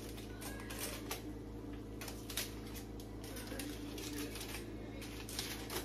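Aluminium foil crinkling and rustling as it is peeled off a hot baking pan of macaroni, a run of irregular crackles and clicks over a low steady hum.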